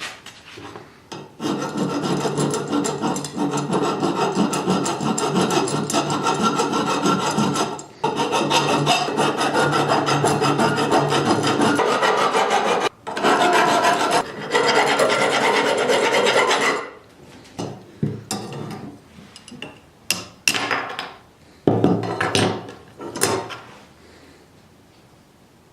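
Rasping, abrasive scraping on the drawknife in long continuous spells, broken by brief pauses, then a handful of short separate strokes near the end.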